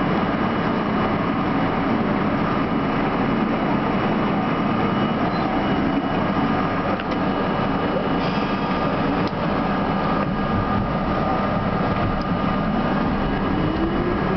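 R32 subway car standing at a station platform with a steady equipment hum, then starting off. In the last couple of seconds the traction motors' whine rises in pitch as the train accelerates.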